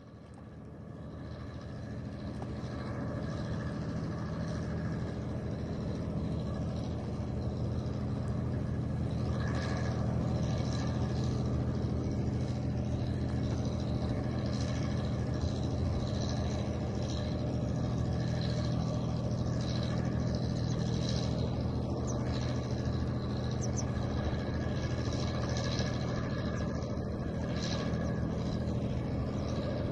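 Waterside ambience dominated by a steady low engine hum, fading in over the first few seconds, with faint short higher sounds scattered through it.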